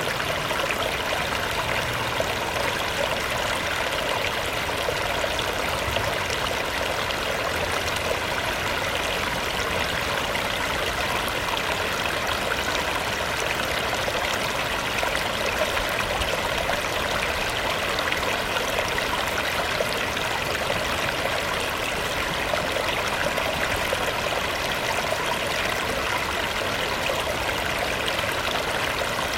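Shallow river water babbling steadily over rocks, a continuous even rush.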